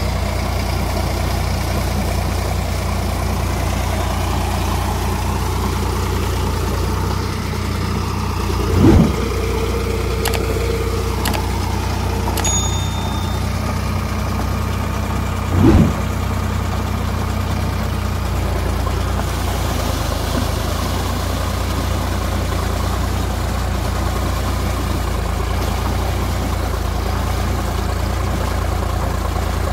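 Sonalika Sikandar tractor's diesel engine running steadily. Two dull thumps stand out, about a third of the way in and again just past halfway.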